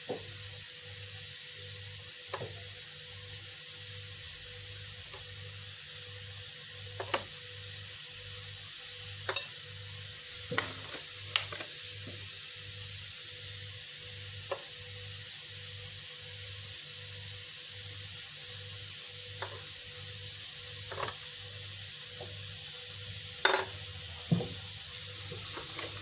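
Steady hiss of a pressure cooker letting off steam on the stove, with a faint low pulse about twice a second. Scattered light clicks and knocks of lemons and a glass jar being handled sound over it, two louder knocks near the end.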